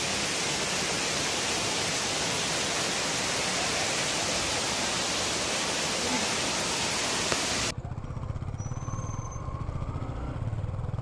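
Rushing water of a rocky waterfall, a steady loud hiss. About eight seconds in it cuts off abruptly to a motorcycle engine running on the road, a rapid low throb.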